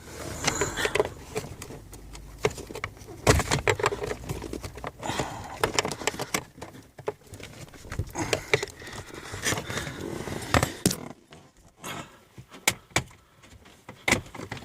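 Irregular clicks, knocks and rustling of hands and tools working at the plastic parts of a car's heater blower housing. The sharpest knocks come about three seconds in and again near the end.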